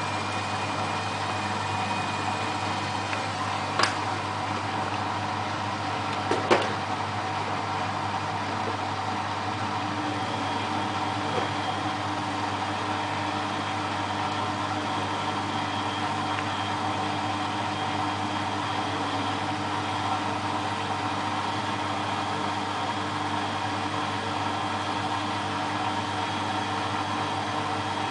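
Beko WMA642 washing machine spinning its drum at a steady speed, the motor giving a constant hum. There are two short knocks, about four seconds in and again about six and a half seconds in.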